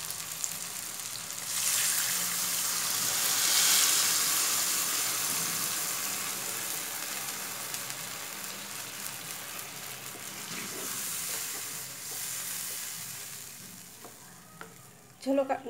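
Water poured into a hot pan of fried rohu fish and potatoes in oil: a loud sizzle surges up about a second and a half in, then slowly dies away as the water heats, with a smaller swell again a few seconds before the end.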